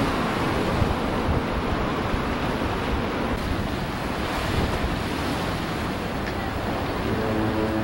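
Small waves washing up a sandy shore and breaking among large rocks, with wind buffeting the microphone. A low steady hum with several tones comes in near the end.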